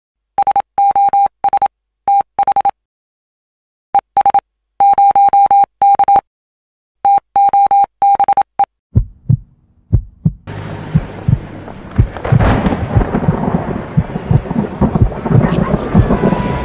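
Electronic beeps at a single pitch, in quick groups of short and long tones like Morse code, while title text appears letter by letter. About ten seconds in they give way to the steady rush of heavy rain, with rumbles of thunder running through it.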